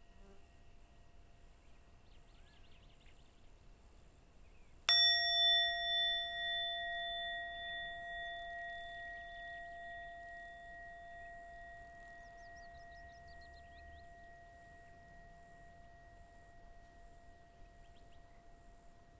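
Small handheld bowl-shaped mindfulness bell, resting on the palm, invited with a single strike about five seconds in. It rings with several clear tones that waver at first and then fade slowly, with the lowest tone still sounding at the end.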